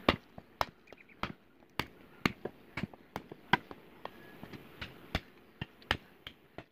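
Sharp metallic knocks, about two a second and uneven in strength, with a short ring after each: a metal tool striking a small steel blade and its socket to fit it onto its wooden handle.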